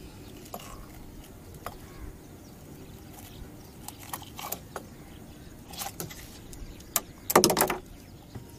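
Metal pliers clicking and scraping against a lure's hooks as the lure is worked out of a snakehead's mouth, in scattered light clicks. Near the end there is a short burst of loud rattling knocks.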